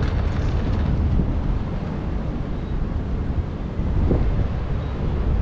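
Street ambience: a steady low rumble of road traffic, mixed with wind on the microphone.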